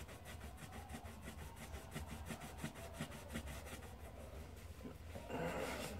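Sock-covered hand rubbing black polish onto a wet leather boot: faint, quick back-and-forth scrubbing strokes, several a second, with a louder burst of scrubbing about five seconds in.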